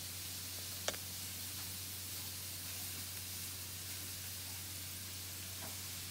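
Steady background hiss with a low hum, and a single sharp click about a second in.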